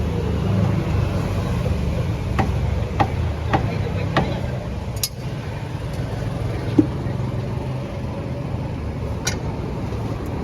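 A steady low rumble with background voices, and a handful of sharp clicks or knocks scattered through it, the sharpest about halfway and near the end.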